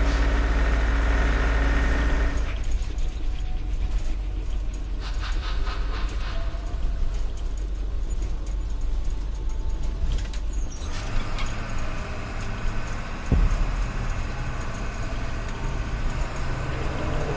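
Bus engine and road rumble heard from inside a moving bus: a steady deep drone, with a single knock about two-thirds of the way through.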